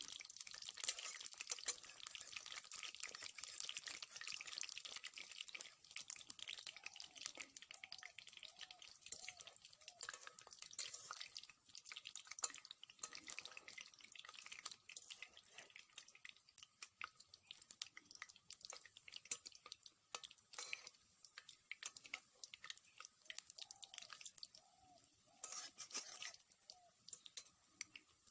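Battered curry leaves frying in hot oil in a karai: a steady sizzle full of small crackles, dense at first and thinning to scattered pops after about six seconds.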